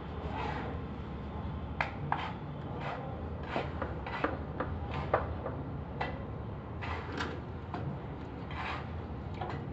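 Scattered light knocks and rubbing from PVC drain pipe fittings being handled, with solvent cement being rubbed into a pipe socket near the end, over a low steady rumble.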